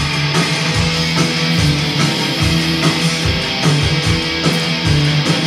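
Blackened horror punk playing from a cassette tape: a distorted electric guitar riff over a steady bass note and driving drum hits.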